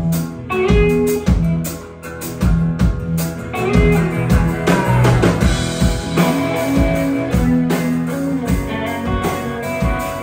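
Live rock band playing an instrumental break with no vocals: drum kit keeping a steady beat under electric guitars, bass and keyboard, with a guitar note gliding down in pitch about halfway through.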